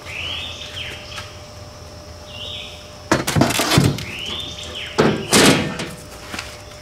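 A cut sheet of .100-inch aluminum flexing, clattering and scraping against the aluminum hull of a jon boat as it is set in as a floor panel, in two loud spells about three and five seconds in.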